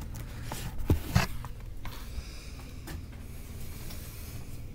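A man breathing hard after exercising, with two short knocks about a second in, over a steady low hum.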